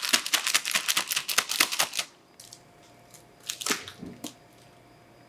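Disposable plastic piping bag full of macaron batter crinkling as it is handled, a dense run of crackles for about two seconds, then a few scattered rustles with a brief louder crinkle near four seconds.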